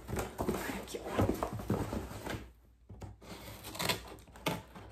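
Scissors cutting into a taped cardboard shipping box, with scraping and rustling of the cardboard. Rasping cuts run for about two and a half seconds, stop briefly, then a few more cuts follow.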